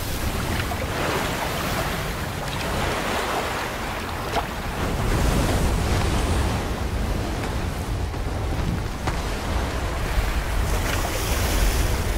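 Steady rush of water and wind over a deep low rumble, swelling about five seconds in, with a few faint clicks.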